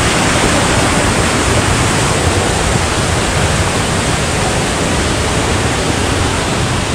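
Running spring water rushing steadily over rocks and into a pool, a loud, even rush.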